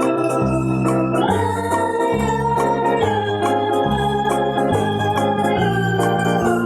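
Background music led by a sustained, organ-like electronic keyboard, with held chords and a bass line that changes note about once a second.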